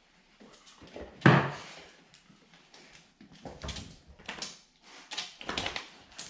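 A Labrador mix's wagging tail knocking against furniture: one sharp, loud knock about a second in, then a run of lighter knocks from about three and a half seconds on.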